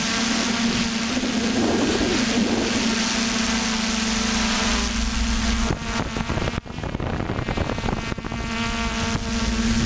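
FPV drone's electric motors and propellers buzzing steadily, heard from the onboard camera. About six seconds in the buzz drops away sharply for a moment as the throttle is cut, then picks back up.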